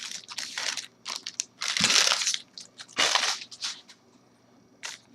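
Crinkling and crunching of a trading-card pack's foil wrapper being handled and torn open, in several irregular bursts.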